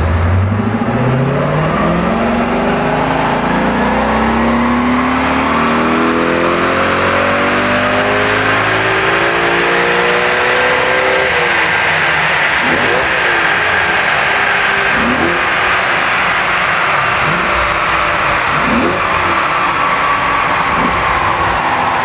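Audi RS4 Avant's engine at full throttle on a rolling-road dyno: the revs climb steadily for about eleven seconds, then the throttle shuts and the car runs down with the tyres and rollers whirring.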